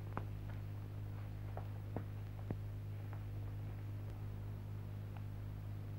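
Quiet, steady low hum from an old film soundtrack, with a few faint clicks scattered through it.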